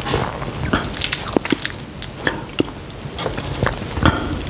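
Close-miked wet chewing and mouth smacks of someone eating saucy instant black bean noodles, heard as a quick series of sharp, wet clicks.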